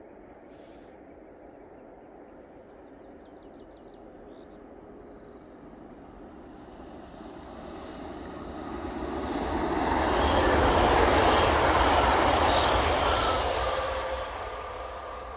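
TransPennine Express Class 397 electric multiple unit passing at speed: wheel-and-rail noise with a high hiss over it builds from about seven seconds in, is loudest around eleven to thirteen seconds, then falls away near the end.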